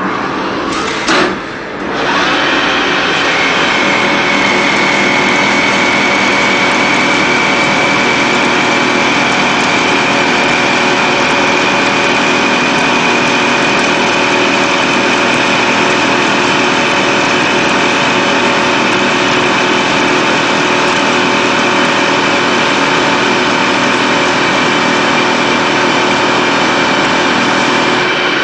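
CNC polygon lathe running through a machining cycle: a steady mechanical whine with a high, held tone. A sharp knock and a brief dip come about a second in.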